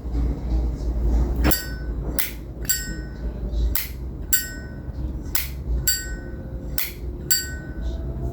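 Vintage 1950s Zippo lighter lid flipped open with a ringing metallic clink and snapped shut with a dry click, over and over, about five times.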